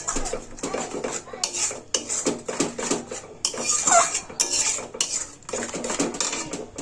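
A cooking spoon scraping and clinking against the pot in quick, irregular strokes as a thick masala paste for a crab gravy is stirred.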